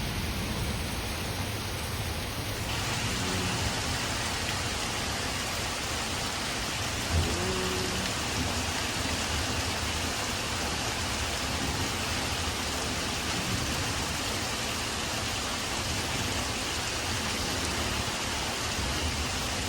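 Steady rain falling during a thunderstorm, an even, unbroken hiss of rain on surfaces.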